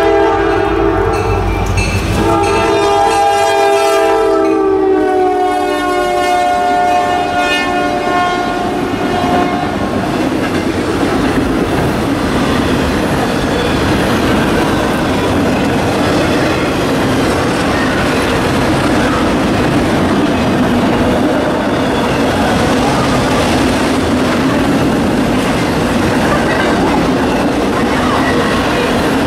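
Diesel freight locomotive's air horn sounding a held multi-note chord as the train comes in. The chord drops in pitch as the locomotive passes and fades out about ten seconds in. A steady rumble and clatter of autorack freight cars rolling by on the rails follows.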